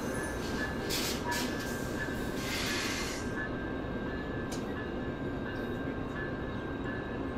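VIA Rail Siemens Venture passenger cars rolling past along the platform: a steady rumble of wheels on the track, with short hissing sounds between about one and three seconds in and a thin, steady high tone running underneath.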